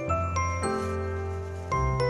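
Background music: a melody of short ringing notes over low bass notes.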